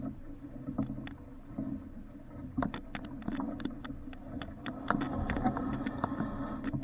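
Water splashing and slapping against a small sailboat's hull while it is under way, with many short sharp knocks over a steady low rumble.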